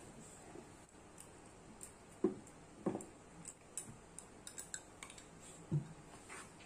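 Light clicks and taps of a metal fork and a glass bowl against a plastic tray as cauliflower florets are tossed in flour and beaten egg is poured over them. There are a few louder knocks about two, three and six seconds in.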